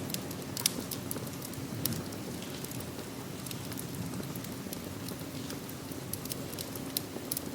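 Steady rain with a wood fire crackling, sharp pops scattered irregularly through it.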